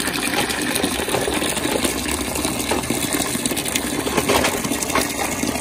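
Water from an outdoor wall tap pouring in a steady stream into a flexible plastic bucket, splashing into the water already in it.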